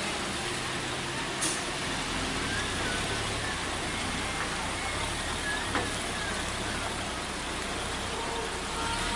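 Mitsubishi Fuso flatbed truck's diesel engine labouring at low revs as it struggles to climb a steep, wet hairpin. It sounds over a steady hiss of rain and wet road, with two short sharp clicks, about 1.5 s and 6 s in.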